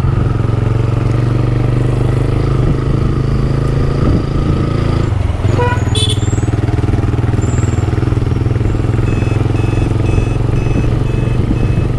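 Motorcycle engine running steadily while riding, with wind and road noise, heard from the rider's seat. A brief higher sound comes about halfway through, and a short electronic beep starts repeating about three times a second near the end.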